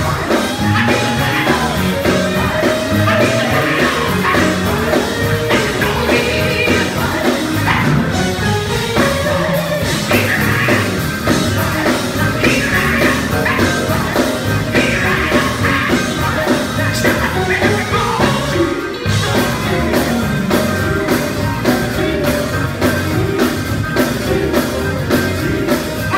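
Female vocal group singing live into microphones, lead and harmony voices over a live band with a drum kit keeping a steady beat, amplified through stage speakers.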